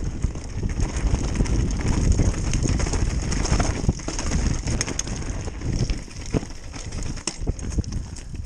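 Mountain bike riding down a rocky trail: the tyres crunch over loose stones and the bike rattles with many quick knocks. A dense low rumble of wind buffets the camera microphone.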